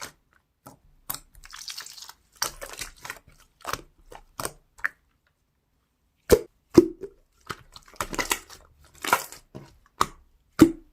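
Slime being squished and stretched by hand, making irregular sticky crackles and pops, with a few louder wet pops in the second half.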